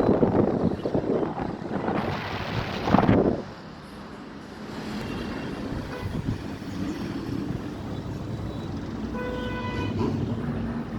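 Wind buffeting the microphone for the first three and a half seconds, then steady road traffic with a short car-horn toot about nine seconds in.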